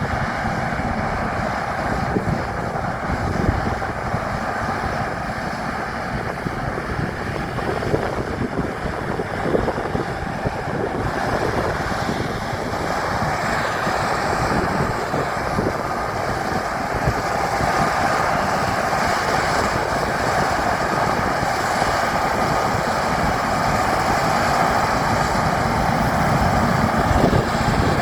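Heavy farm machinery running steadily at work, a combine harvester and carting tractor, with wind noise on the microphone; the sound grows a little louder in the second half.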